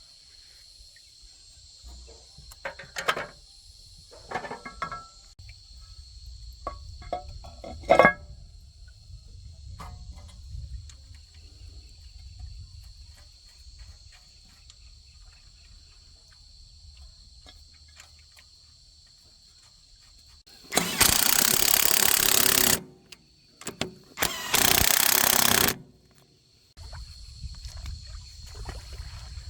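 Scattered short knocks and clicks of work on metal, then two loud hissing bursts of about two seconds each, over a steady high insect drone.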